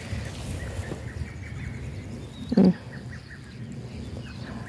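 A goat gives one short bleat about two and a half seconds in, over faint small-bird chirping and a low background rumble.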